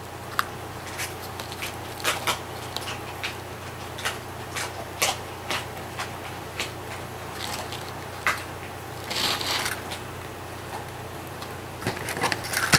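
Hands handling a folded paper medallion and a feather boa on a tabletop: scattered soft rustles, crinkles and small taps. There is a longer rustle about nine seconds in and a louder flurry of clicks near the end.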